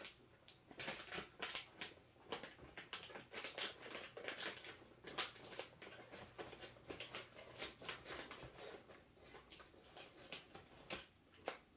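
Scissors snipping through a plastic snack bag, and the bag crinkling as it is handled and pulled open, in irregular crackles.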